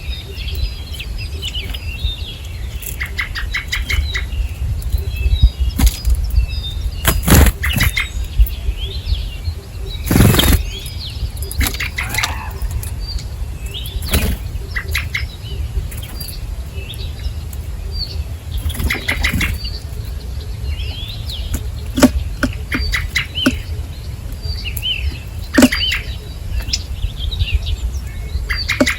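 Small wild birds at a feeder chirping in short, quick calls, with repeated brief flutters of wingbeats as birds fly in and out. A steady low rumble runs underneath.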